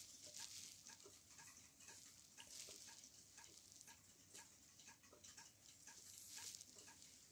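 Faint, even ticking from the arm mechanism of a battery-operated waving lucky cat, a few ticks a second, over a steady high hiss.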